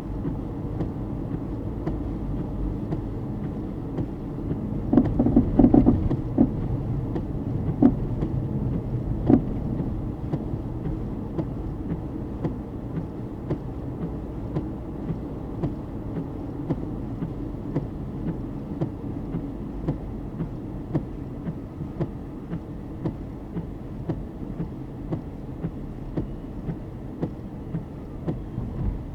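Car driving, with a steady low road rumble. A cluster of knocks comes about five to ten seconds in, and light, fairly regular clicks follow later.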